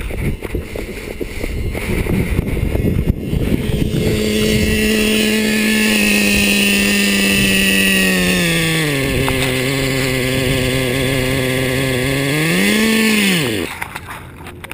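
Small nitro engine of a Traxxas Slayer 4x4 RC truck running at a steady high idle. It drops to a lower pitch about halfway through, then near the end revs briefly and dies. The caption marks the truck as having a broken push rod. Before the engine sound there are scuffs and clicks of handling and walking.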